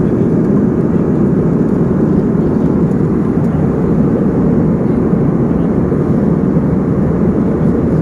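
Jet airliner cabin noise in cruise: a steady, even low rush of engines and airflow heard from inside the cabin.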